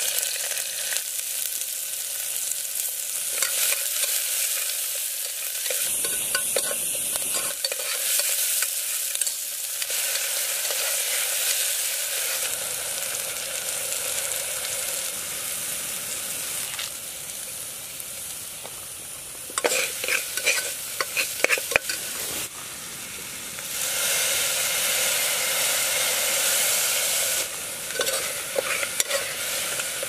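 Oil and spices sizzling in an aluminium pressure cooker over a camping gas stove, with a metal spoon stirring and scraping against the pot, in bursts about two-thirds of the way through and near the end.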